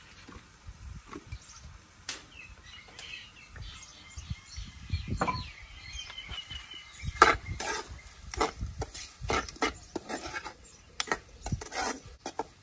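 Metal ladle clinking and scraping against a steel wok during stirring, a run of sharp clinks in the second half. Birds chirp faintly before this.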